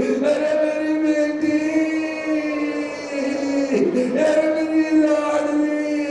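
A man's voice chanting a mourning lament (masaib) at a Shia majlis, in two long held notes with a wavering break between them.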